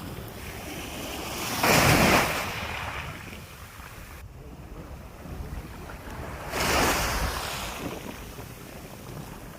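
Sea waves washing onto the shore, two louder surges about five seconds apart with a calmer lull between, over a steady rush of wind on the microphone.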